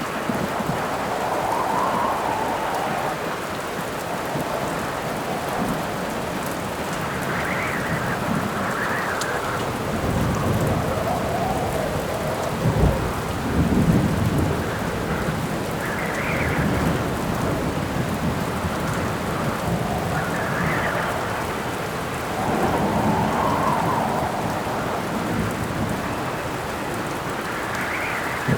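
Steady rain with rolling thunder and howling wind gusts that rise and fall every few seconds; the heaviest thunder rumbles come about halfway through and again near the end.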